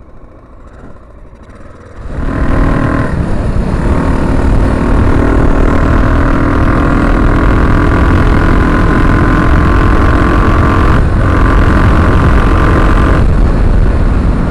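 Honda XL600R's 589cc single-cylinder engine, low and quiet at first, then pulling away hard about two seconds in and running steadily at speed under heavy wind noise on the microphone. Its sound briefly dips and changes about eleven seconds in.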